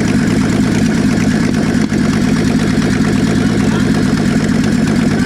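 Holden VT Commodore's Ecotec V6 running steadily with no exhaust fitted, a loud, fast-pulsing rumble that dips for an instant about two seconds in.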